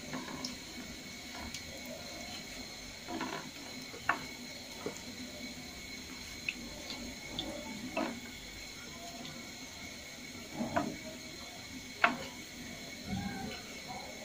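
Beef kababs frying in hot oil in a pan, sizzling and bubbling steadily, with several sharp taps of a wooden spatula against the pan, the loudest about twelve seconds in.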